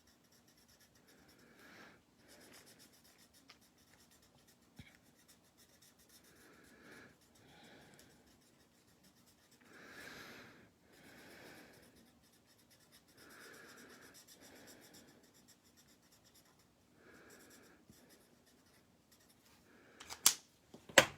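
Felt tip of an alcohol marker rubbing on cardstock in faint, slow strokes as a small area is coloured in, with two sharp clicks near the end.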